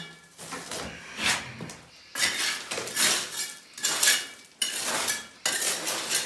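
A metal hand tool digging and scraping through broken concrete rubble and soil in a cellar floor, a run of uneven scrapes and clinks.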